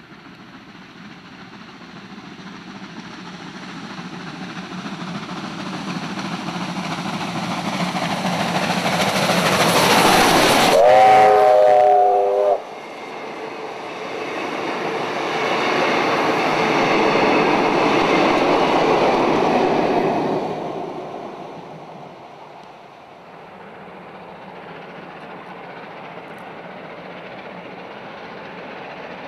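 Victorian Railways R-class 4-6-4 steam locomotive R707 approaching with a train of carriages, its running noise building for about ten seconds. It sounds its steam whistle for about two seconds as it draws level, a chord of several pitches that cuts off sharply. The carriages then roll past and the sound fades to a lower, steady distant rumble.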